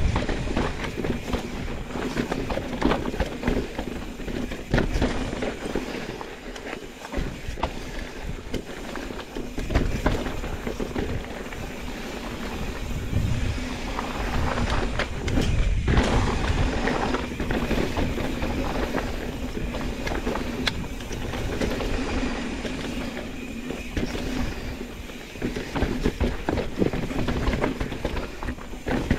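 Mountain bike riding down a rocky technical trail: continuous rattle and clatter of tyres and bike over rock, with many sharp knocks from rock hits and a low rumble underneath.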